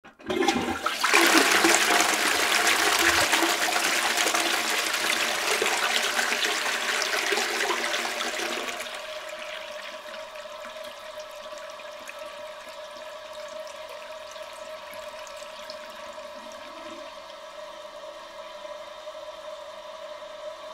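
Toilet flushing: the water rushes in loudly right after a sudden start, runs for about eight seconds, then drops to a quieter steady hiss and hum as the tank refills.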